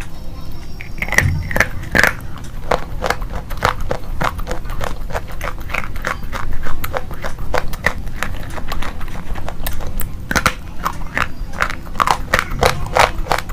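Close-up crunching of slate pencils being bitten and chewed: a quick, irregular run of sharp cracks and crunches.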